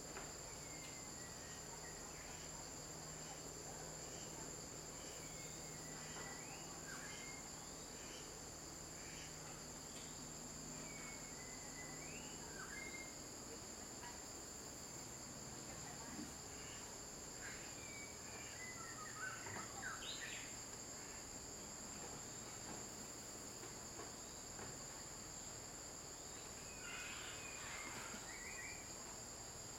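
Insects droning steadily in several constant high tones, with short chirping calls scattered over the top, clustered about two-thirds of the way through and again near the end.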